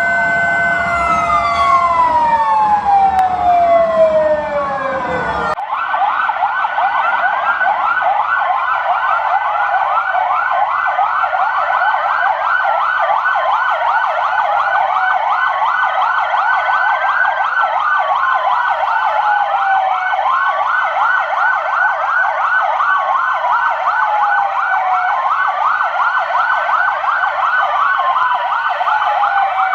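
Several police car sirens sounding together. At first a steady tone winds down in pitch. After an abrupt change about five seconds in, many overlapping sirens sweep rapidly up and down, with slower falling wails repeating every two to three seconds.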